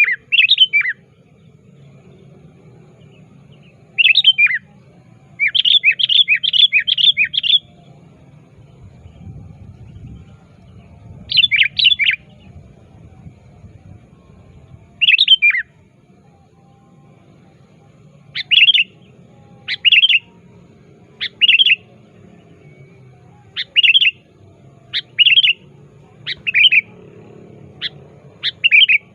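Male sooty-headed bulbul (kutilang) calling in short, bright, repeated phrases, including a quick run of about six notes early on and then single phrases every second or two. These are a male's calls to a rival.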